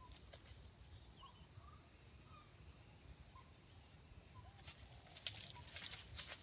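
Faint, soft short clucks from red junglefowl foraging, about one a second, with a spell of crackling rustles in dry leaf litter about two-thirds of the way in.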